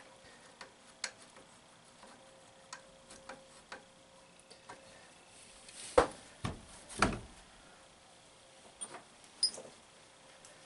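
Scattered light clicks and taps of a Delco CS-130 alternator being handled and its housing bolts fitted on a workbench, with two louder knocks about six and seven seconds in.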